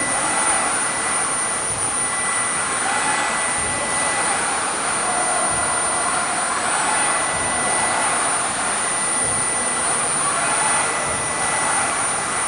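CNC carving machine running: its high-speed spindle gives a steady high-pitched whine over a constant rushing noise.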